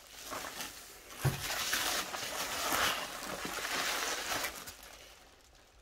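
Packing material rustling and crinkling in a cardboard shipping box as a hand rummages through it, with a short knock about a second in, then dying away near the end.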